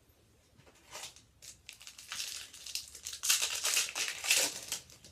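Plastic trading-card pack wrapper crinkling as it is handled and torn open, in several rustling bursts that are loudest about three to four and a half seconds in.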